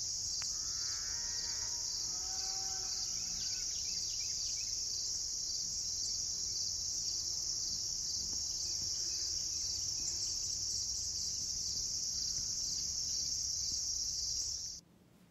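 Steady, high-pitched chorus of insects, with a couple of faint pitched animal calls in the first three seconds. It cuts off suddenly near the end.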